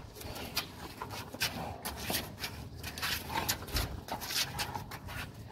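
Irregular scuffs and rustles, about one or two a second: a person and a large dog moving about on paving stones right beside the microphone.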